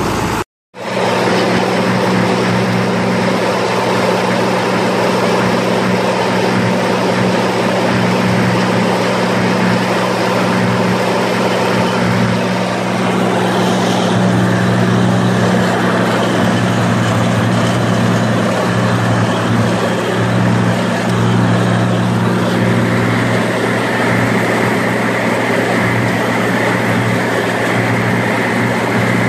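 Oliver farm tractor engine running steadily while mowing hay with a mower. It cuts out for an instant just after the start, and a higher steady whine joins in for the last several seconds.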